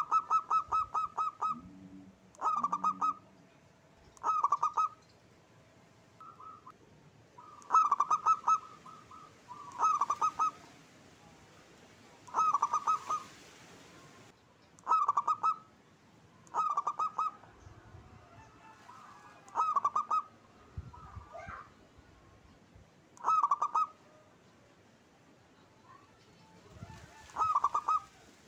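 Zebra dove cooing: about a dozen short bursts of quick, stuttering coos, one every two seconds or so, the first burst the longest.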